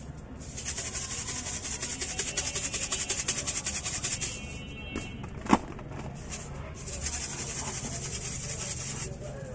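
Small plastic shaker bottle shaken rapidly to sprinkle coloured paan toppings, the grains rattling inside in two bouts of a few seconds each. A single sharp click comes about halfway through.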